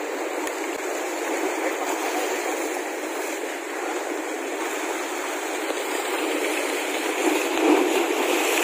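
Sea surf washing over the rocks of the shore: a steady rush of water, swelling a little near the end.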